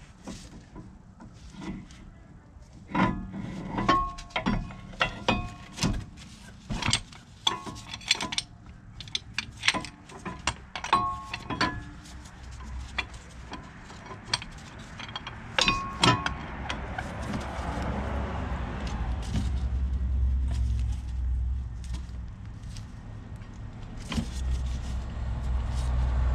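Metal tools and the C-clamp clinking and knocking against a front brake caliper while its stuck piston is pressed back. The knocks are sharp and ring briefly, thickest in the first half. A low rumble swells in the last third.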